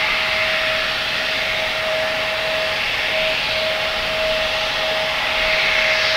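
Embraer E170's General Electric CF34 turbofan engines running at taxi power as the jet rolls slowly: a steady whine at one pitch over a constant rushing noise.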